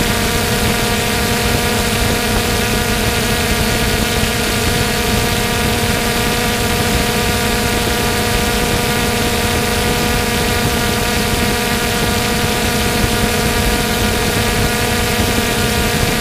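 3DR Solo quadcopter's electric motors and propellers running in flight: a steady, loud hum of several constant pitches over a rushing noise.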